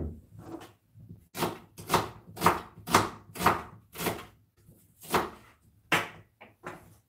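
Kitchen knife chopping on a plastic cutting board, sharp irregular cuts about two a second, after a single knock at the start.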